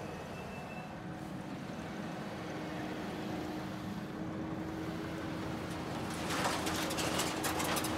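Kubota skid steer engine running steadily while loading scrap metal. About two seconds from the end, metal scrap clatters and clanks as it is dropped.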